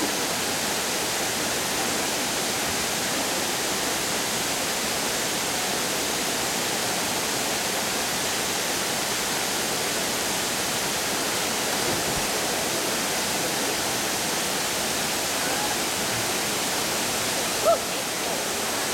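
Waterfall cascading over limestone tiers into a pool: a steady rush of falling water. A brief louder sound cuts in near the end.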